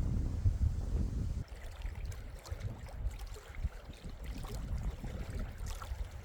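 Wind rumbling on the microphone, cut off suddenly about a second and a half in. It is followed by quieter outdoor ambience with scattered faint crackles and ticks.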